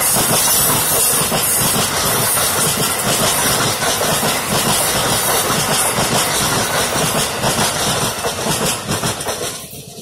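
Amtrak passenger cars rushing past at speed: a loud, steady roar of wheels on rail and rushing air with fine rail clatter, dying away quickly as the last car goes by near the end.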